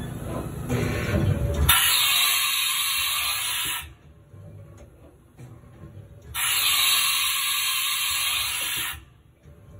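Haas VF-2 umbrella tool changer cycling: a low mechanical rumble for the first second and a half, then two bursts of compressed-air hiss, each about two seconds long and cutting on and off sharply, with faint clicks between them as the tool carousel indexes.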